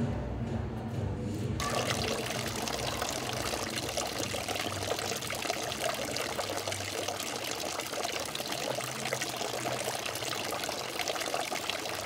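Water pouring from a fountain spout and splashing steadily into a stone basin, starting abruptly about a second and a half in.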